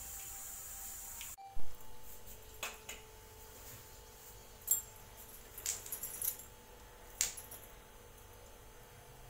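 A faint steady hiss that breaks off suddenly about a second and a half in, followed by a few sharp clinks and taps of steel kitchenware, the first one the loudest.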